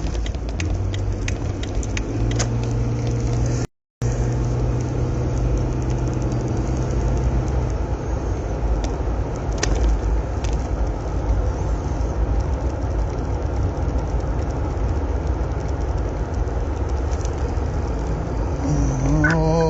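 Car engine and road rumble heard from inside a moving car, the engine note stepping up about two seconds in. The audio cuts out completely for a moment about four seconds in.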